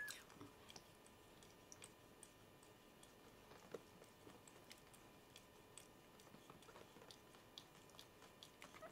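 Near silence with faint, irregular soft clicks: a Norwegian Forest cat mother licking her newborn kittens clean.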